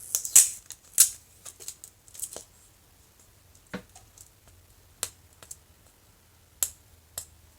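Scattered crinkles and sharp clicks of a small plastic-packaged item being handled while fingernails pick at the tape sealing it. The sounds come thick in the first couple of seconds, then as a few separate clicks.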